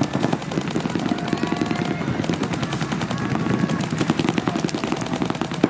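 Paintball markers firing in rapid, overlapping volleys of pops across the field.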